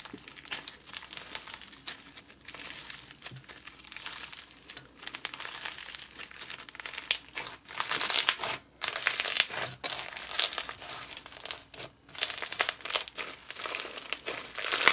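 Crunchy floam slime (white glue slime packed with foam beads) being squeezed, kneaded and stretched by hand, giving a dense, irregular crunching and crackling of the beads, louder in clusters.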